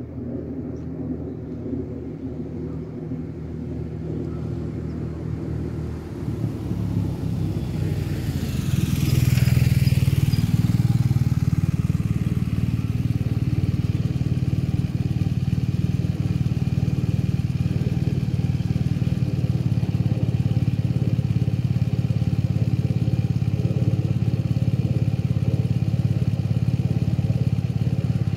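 A motorcycle engine draws near and passes close by about nine seconds in, then idles steadily and loudly for the rest of the time.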